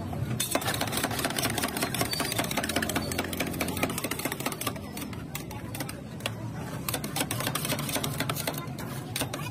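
Two steel spatulas rapidly chopping and scraping ice cream mix on the frozen steel plate of a rolled ice cream counter: a fast, dense clatter of metal strikes that starts about half a second in.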